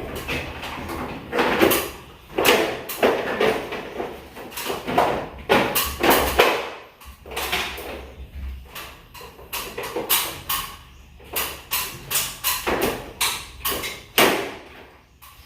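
Irregular knocks, clicks and scrapes of hard objects being handled, over a faint low hum.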